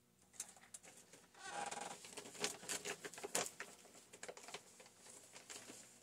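Hands handling small chainsaw parts and tools on a workbench: an irregular run of light clicks, taps and rustles, with a brief squeaky rustle about a second and a half in.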